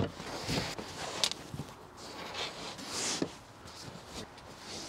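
Rustling and soft thumps of pillows and blankets being handled and pushed onto an overhead van shelf, with a few light knocks and shuffling steps.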